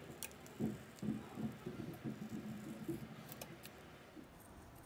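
Faint handling noise of a pry pick working a laptop display bezel loose from its adhesive, with a few small sharp clicks and light scraping.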